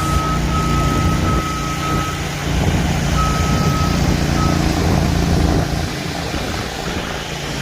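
A heavy truck's diesel engine running steadily, with a vehicle's backup alarm sounding in several long beeps during the first half.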